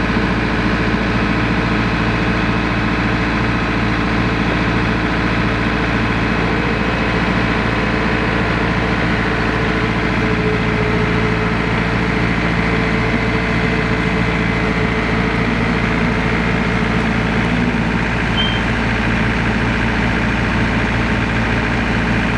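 Compact diesel tractor engines running steadily at one even pitch, with no revving, as an RK 55 tows a stuck RK 37 out on a tow strap.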